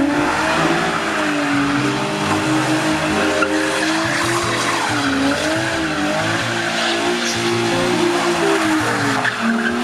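Infiniti G35 drifting: tires squealing and skidding as the engine revs rise and fall, over background music.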